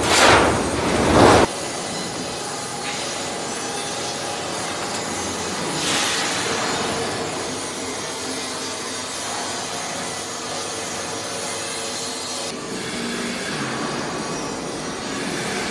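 Double-layer roofing sheet roll forming machine running: steel sheet feeding through the forming rollers with a steady rubbing, grinding noise. A much louder burst of noise cuts off suddenly about a second and a half in.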